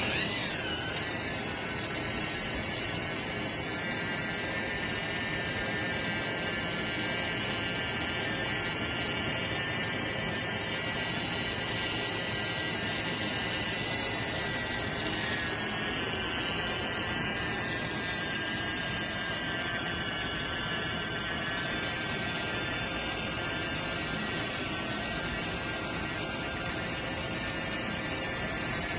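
Kitchen Mama One Touch battery-powered can opener running, its small electric motor giving a steady high whine that wavers briefly as it starts.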